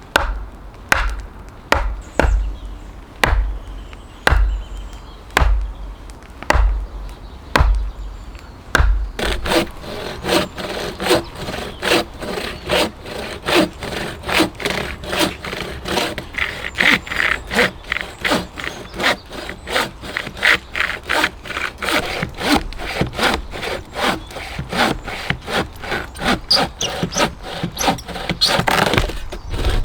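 Hand saw cutting through a log with quick, steady back-and-forth strokes, preceded for the first nine seconds by heavy thuds about once a second, like blows on wood.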